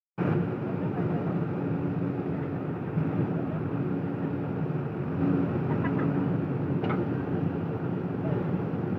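JCB 3DX backhoe loader's diesel engine running steadily while its backhoe arm digs and lifts a bucket of soil, with a single short knock about seven seconds in.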